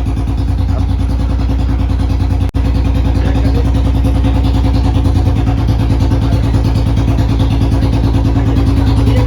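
Royal Enfield Bullet's single-cylinder four-stroke engine running steadily with an even, fast thump, cut by a brief dropout about two and a half seconds in.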